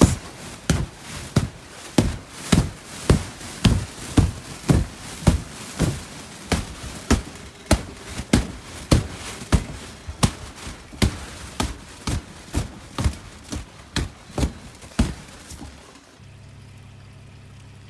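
A steady run of dull knocks or thuds, about two to three a second, that stops about sixteen seconds in, followed by a low steady hum.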